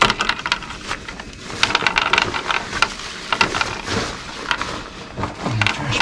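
Plastic snack packaging crinkling and rustling as it is handled, with many quick sharp clicks, busiest a couple of seconds in.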